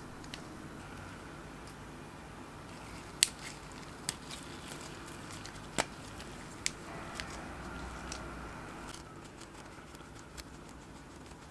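A handful of sharp plastic clicks and taps as a lip balm tube is handled, about five in all, the loudest a little after three seconds in, over a steady background noise.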